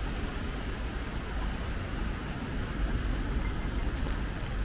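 Steady city street noise in the rain: a deep, unbroken traffic rumble with a light hiss over it.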